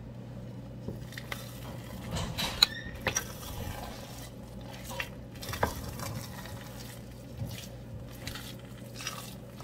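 Wooden spoon stirring and mashing soft-cooked rice into tuwo in a stainless steel pot, with scattered knocks of the spoon against the pot, loudest two to three seconds in. A steady low hum runs underneath.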